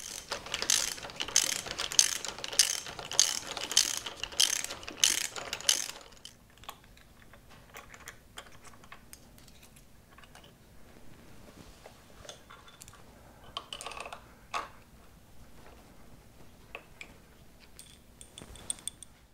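Socket ratchet wrench clicking in repeated strokes, roughly two a second, for about the first six seconds, then quieter scattered clicks and taps as the wrench works the motorcycle's handlebar clamp bolts.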